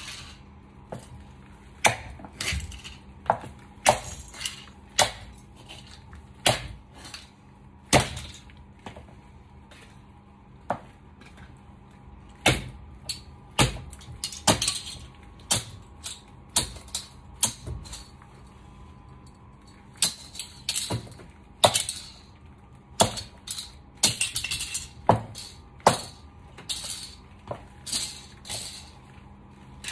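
High stiletto heels clicking on a ceramic tile floor and crushing small toy cars underfoot: sharp cracks and crunches of breaking toy pieces, irregular, one or two a second with quick clusters.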